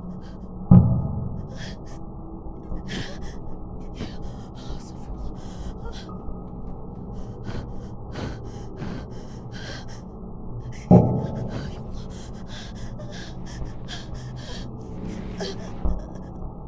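A person breathing hard in short, frightened gasps. Two heavy low thuds with a ringing tail cut in, about a second in and again about eleven seconds in.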